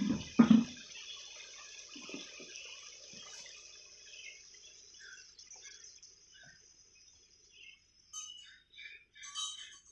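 Forest ambience: scattered bird chirps, busiest near the end, over a steady high hiss that fades out about eight seconds in. Two dull thumps right at the start.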